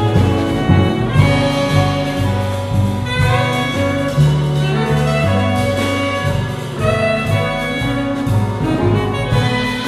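Live jazz quartet playing: a tenor saxophone plays the melody over plucked upright bass, electric guitar and drums.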